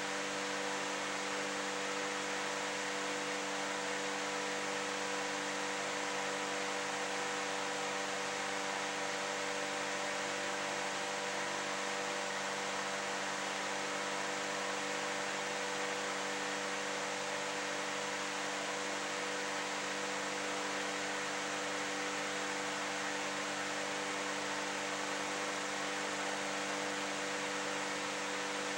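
Room tone: a steady hiss with a constant hum underneath, unchanging throughout, with no distinct events.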